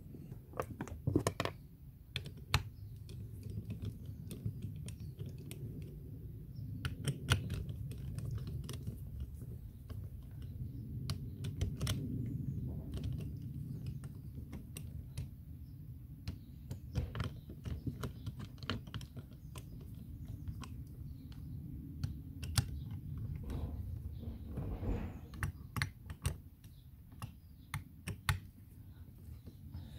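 Irregular small clicks and taps of metal and plastic parts as a Kärcher K5 high-pressure pump is pressed together and its bolts are turned in by hand, over a steady low rumble.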